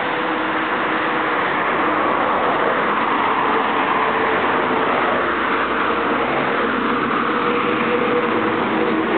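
Street traffic: cars driving past, a steady vehicle noise with a humming tone in it at times.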